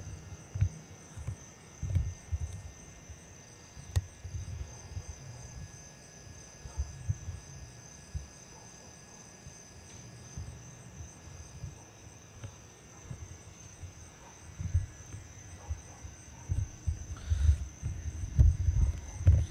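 Irregular low thumps and bumps of a handheld Canon XL1 camcorder being carried and moved about, heavier near the end, over a steady high-pitched chirring typical of night insects such as crickets.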